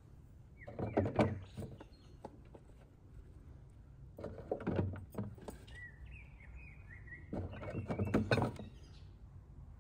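Handfuls of cauliflower florets dropped and pushed into a large plastic jar, three bouts of clattering and rustling against the plastic. A bird chirps a few times in the pause between the second and third handful.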